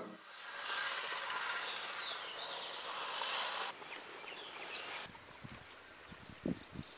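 Chicken rasam boiling in a clay pot over a wood fire, a soft steady hiss of bubbling, which drops to a quieter hiss after about three and a half seconds. Near the end, a few low knocks as the clay pot is handled and lifted off the fire.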